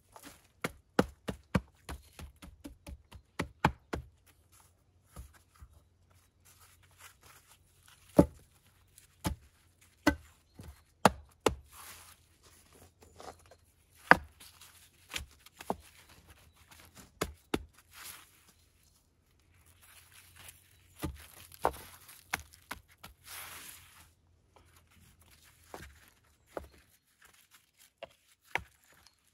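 Stones knocking and clay being packed and scraped by gloved hands while a stone-and-clay fireplace wall is built: a quick run of sharp taps and knocks in the first few seconds, then scattered knocks with stretches of rustling, crumbling soil.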